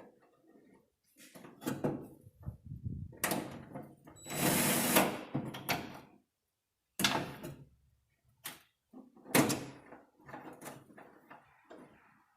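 Irregular clacks and knocks of a plastic tailgate handle being wiggled and worked out of a 2009 Ford Ranger's tailgate, with a longer scraping rattle about four seconds in.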